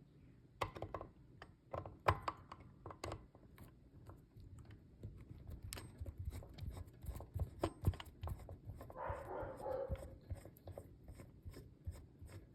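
Screwdriver backing out a small screw from a cover plate under firm pressure, with scattered clicks and taps of the tool and metal parts, and a short rasping sound about nine seconds in.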